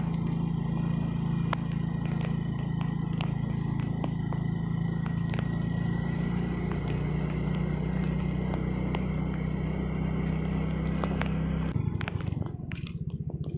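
A small engine running steadily at idle, with scattered light clicks; its low hum changes abruptly about twelve seconds in.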